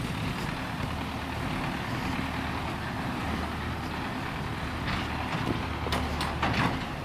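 Heavy machinery's engine running steadily with a constant low hum, and a few sharp clicks near the end.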